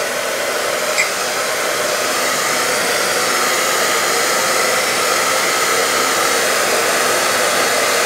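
Handheld hair dryer blowing steadily, a constant whoosh of air with a faint motor hum, aimed at a wig cap on the head. A small click about a second in.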